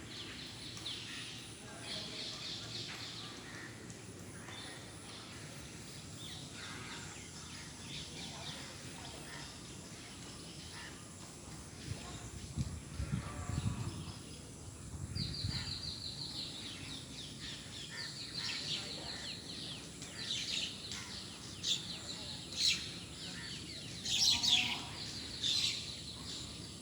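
Small birds chirping over a steady outdoor background hiss, the chirps growing busier in the second half, with a brief low rumble about halfway through.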